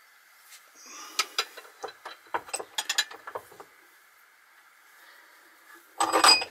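A small pipe cutter handled on a thick-walled copper tube: a run of sharp metallic clicks and clinks for a couple of seconds, then a louder clatter lasting about half a second near the end.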